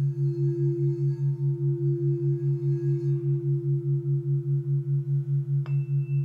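A crystal singing bowl sings a steady tone whose higher overtones fade out partway through. Beneath it a low background entrainment tone pulses about five times a second. Near the end a single sharp tap sets off a new, higher ringing tone.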